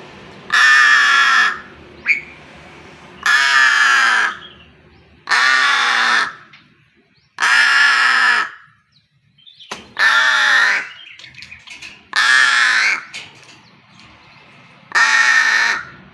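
Pet bird giving loud, long, hoarse calls, seven of them, each about a second long and coming every two to three seconds, each call dropping in pitch at its end.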